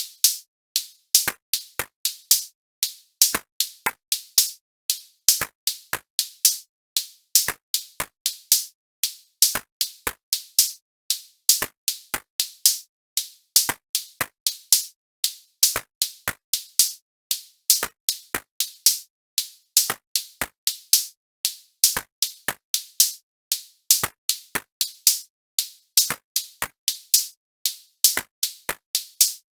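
Electronic drum-machine beat made only of short, sharp, bright percussion hits, three or four a second in a repeating uneven pattern, with silence between the hits.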